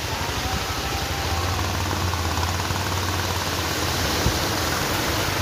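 A car driving through a flooded street: its engine hums steadily under a continuous rush and splash of water thrown up by the wheels.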